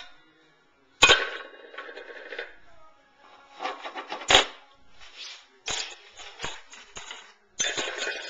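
Stainless steel pots and lids clanging and clattering as a toddler knocks them together and drops them into one another: a string of sharp metallic knocks with ringing after, the loudest about a second in and about four seconds in.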